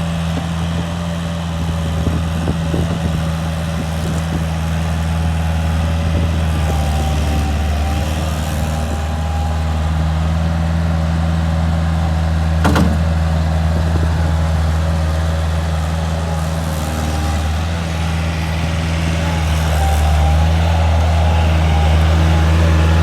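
Bobcat 751 skid steer's diesel engine running steadily, with a single sharp click about thirteen seconds in and a slight rise in engine level near the end.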